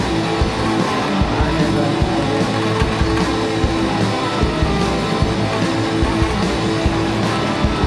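Live rock band playing an instrumental passage: electric guitars holding notes over bass guitar and a steady drum beat.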